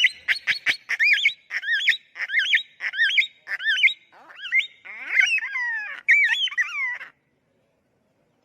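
A bird calling in a rapid series of short chirps and squawks, some sliding down in pitch, that stops abruptly about seven seconds in.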